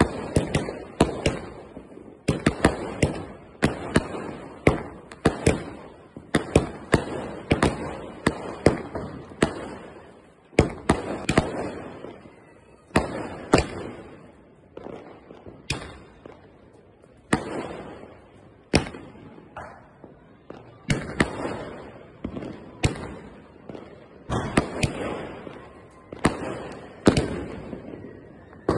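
A 60-shot aerial firework cake (sky shot) firing in succession: sharp bangs about one a second, sometimes two in quick succession, each trailing off briefly as the shells burst overhead.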